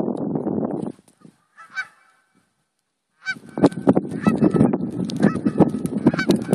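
A flock of Canada geese honking: a few calls about two seconds in, then a loud chorus of many geese calling over one another from about three seconds on. A second-long burst of noise comes right at the start.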